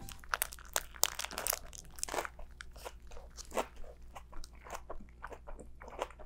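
Crisp biting and chewing of a tortilla wrap packed with fresh vegetables and plant-based chicken strips. A quick run of crunches comes in the first couple of seconds, then slower irregular chewing crunches follow.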